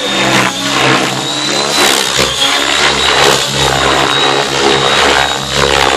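Radio-controlled Rush 750 helicopter in flight: steady motor and rotor noise with a thin, steady high whine over an uneven rotor chop.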